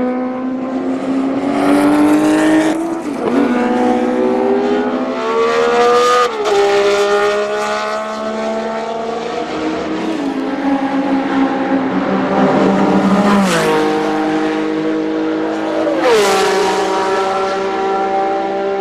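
Ferrari 312 PB's 3-litre flat-12 racing engine at high revs, its pitch climbing and then dropping sharply at gear changes, about four times.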